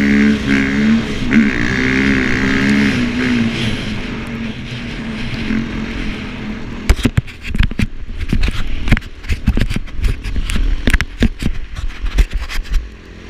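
KTM snow bike's engine revving, its pitch rising and falling over the first few seconds, then dropping away. From about seven seconds in, loud irregular crackling knocks take over.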